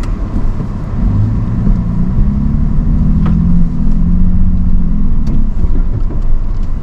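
Vehicle engine running under load over a steady low rumble of driving on a rough trail, its engine tone strengthening about a second in and holding with small changes in pitch.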